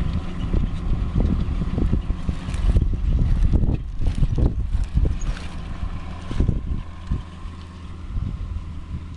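New Holland TM165 tractor engine running steadily under load while pulling a plough, with gusts of wind buffeting the microphone. It grows somewhat quieter in the last couple of seconds.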